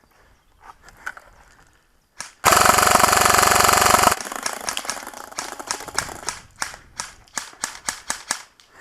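G&P M249 MKII airsoft electric gun firing one sustained full-auto burst of about a second and a half, starting about two seconds in. A run of separate, quieter sharp snaps follows.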